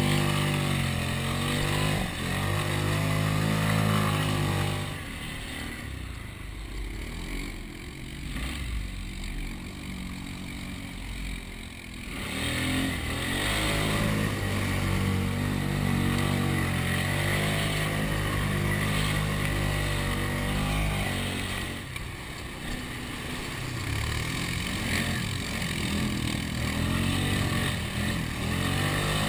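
Polaris Sportsman 500 H.O. ATV's four-stroke single-cylinder engine running under throttle, easing off for several seconds partway through, then picking up again, with rising and falling revs near the end.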